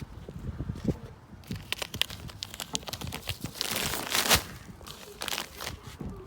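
Rustling and crinkling of something being handled, with scattered small clicks and knocks, and a louder rustle about four seconds in.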